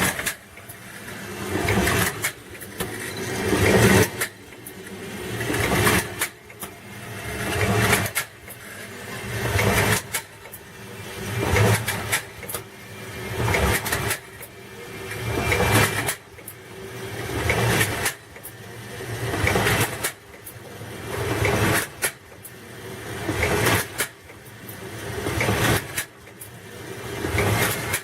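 Pharmaceutical syrup bottle filling machine running through its cycles, one about every two seconds. Each cycle builds up over a second or so and ends in a sharp clack.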